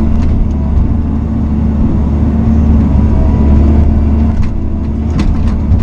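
Bobcat mini excavator's diesel engine running steadily under load while the bucket digs, heard from inside the closed cab, with a few sharp knocks near the end.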